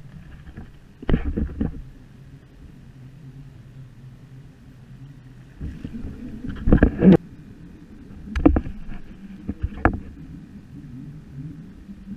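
Water knocking and splashing against a sea kayak's hull and paddle in irregular bursts, a cluster about a second in and several more between about six and ten seconds in, the loudest near seven seconds. A low steady hum runs underneath.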